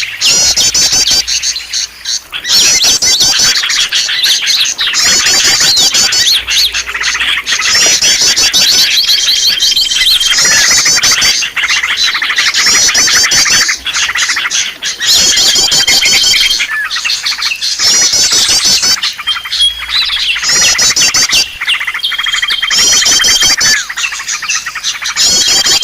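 A busy chorus of small songbirds chirping and twittering without pause, played as a bird-lure call. A fast, high trill phrase repeats every couple of seconds, and a single held whistle note comes back several times.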